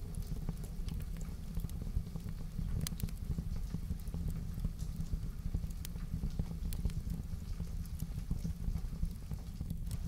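Wood fire in a fireplace crackling, with scattered sharp pops over a steady low rumble, mixed with the patter of heavy rain.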